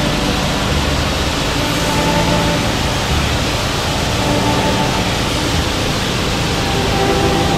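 Pressure-washer wand spraying a high-pressure jet of water against a tractor's tire and loader: a loud, steady hiss of spray, with a faint hum underneath.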